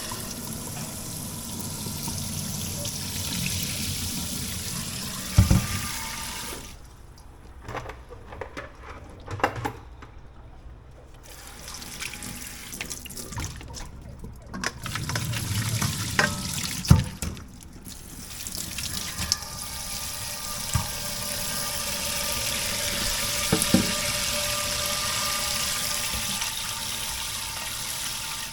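Kitchen tap running into a sink as sago worms are washed, the water shut off for several seconds in the middle and then running again, with a few sharp knocks along the way.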